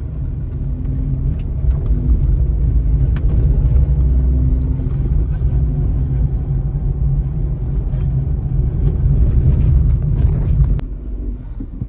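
Car on the move: a steady low rumble of engine and road noise, which drops away sharply near the end.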